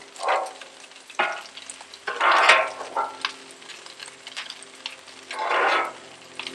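Metal spatula scraping and pushing rice across a hot steel Blackstone flat-top griddle in several strokes, over a steady sizzle of the rice and vegetables frying in butter.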